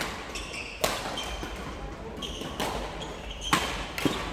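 Badminton rackets striking a shuttlecock in a rally, sharp knocks echoing in a sports hall, with shoes squeaking on the court floor between the hits.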